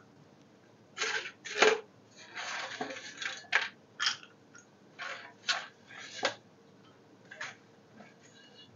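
Kitchen utensils clinking and scraping: about a dozen short knocks and scrapes of dishes and a spoon, with a short rustling scrape among them, while dry fruits are readied for the kheer pot.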